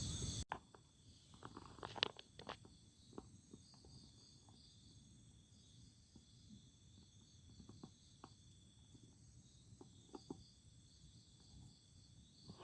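Faint chorus of night insects such as crickets, a steady high-pitched pulsing trill, with scattered light ticks and clicks. It drops suddenly to this low level about half a second in.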